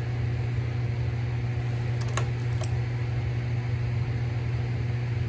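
Steady low machine hum, with a few light clicks about two seconds in.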